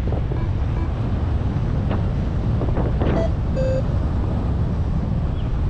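Wind rushing over the microphone of a paraglider pilot in flight. A short electronic beep comes a little past halfway.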